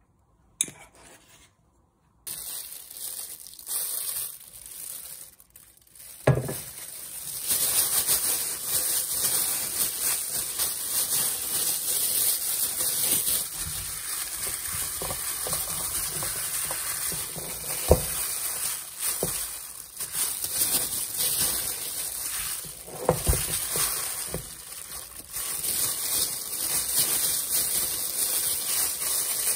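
Food sizzling in a hot frying pan, a steady hiss that swells about seven seconds in, with a few sharp knocks of a cooking utensil against the pan.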